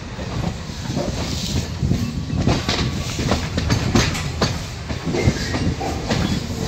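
MEMU train's wheels rolling on the track, with a low rumble and irregular clatter and knocks as the wheels pass over rail joints and points. The knocks come thicker after the first second or so.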